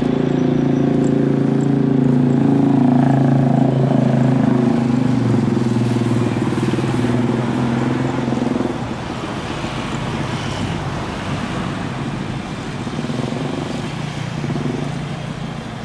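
Jet engines of a Thai Airways Boeing 777 airliner running on the runway after takeoff clearance. A steady low drone with several held tones gives way to a broader rumble about nine seconds in.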